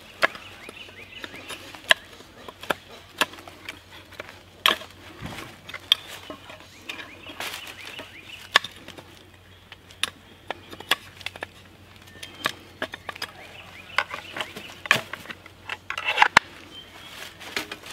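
Large knife cutting into the end of a sapling pole: sharp, irregular chopping and whittling strokes, roughly one a second. Near the end, the knife is slid back into its belt sheath.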